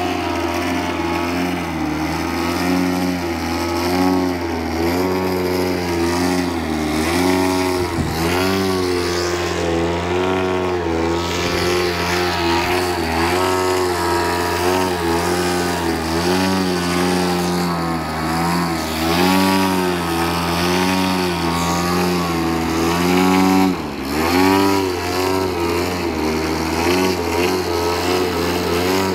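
DLE 50 cc single-cylinder two-stroke petrol engine of a radio-controlled Yak 54 aerobatic plane running hard through torque manoeuvres, its pitch rising and falling constantly with the throttle. The pitch dips sharply and recovers twice.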